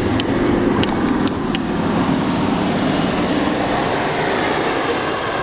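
Land Rover Defender's engine running steadily as the vehicle works through deep snow, with a few sharp clicks in the first second and a half.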